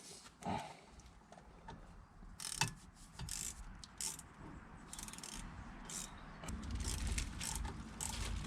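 Hand tools clicking and scraping on a car's rear brake assembly in a run of short, irregular metal sounds. A low rumble comes in near the end.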